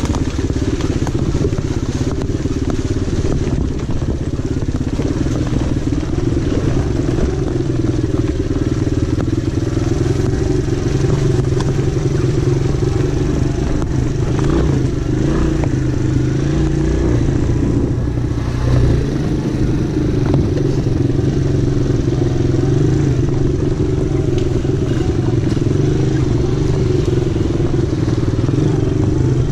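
Small ATV engine running steadily at trail-riding speed, heard from on board, with its note wavering a little around the middle.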